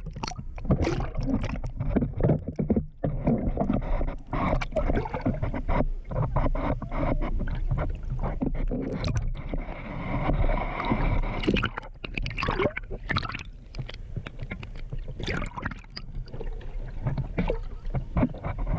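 Water splashing and gurgling around a camera dipped at and just below the sea surface, an irregular, continuous churn of small splashes.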